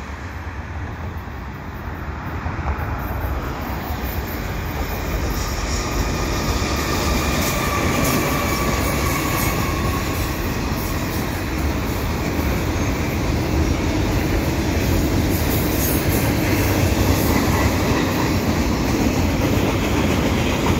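Double-stack container freight train crossing a steel railway bridge: the rumble of the lead diesel locomotive grows as it approaches and passes, then the cars roll by with a steady rumble and clatter of wheels on the rails. A faint high wheel squeal rises near the middle.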